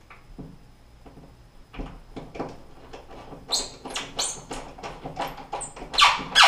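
A metal molly anchor being worked into a hole in drywall by hand: a run of short scrapes and clicks, sparse at first, then quicker and louder from about halfway, with the two loudest near the end.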